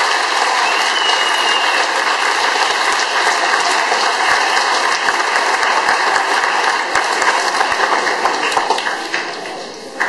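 Audience applauding: a steady crowd of many hands clapping, which tails off near the end.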